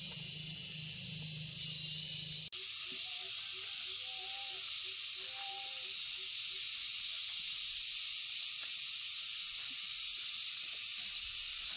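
Outdoor ambience: a steady high-pitched hiss, with a low hum that stops at a cut about two and a half seconds in. After the cut comes a quick run of short low notes, about four a second, for a few seconds.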